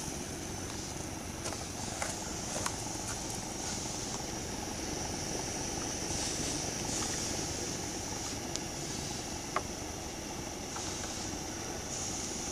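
Aster K4 gauge 1 live-steam locomotive running under load, its exhaust and steam hiss blending into a steady rush, with a few sharp clicks along the way.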